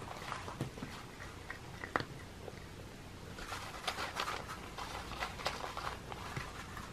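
Cats crunching dry kibble: irregular, crisp chewing crunches that come thicker from about three and a half to five and a half seconds in.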